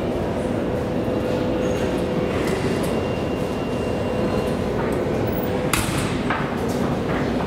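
Busy metro station vestibule ambience: a steady wash of footsteps and movement with a faint steady hum that stops about three-quarters of the way through, and a sharp click near the end.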